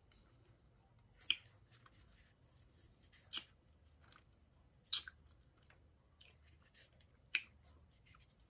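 Mouth clicks and lip smacks while tasting Pixy Stix candy powder: a handful of sharp, short clicks a second or two apart over a quiet background.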